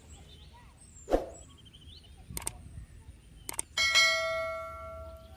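A knock, two sharp clicks, then a single bright metallic ring like a small bell, struck once and dying away over about a second and a half.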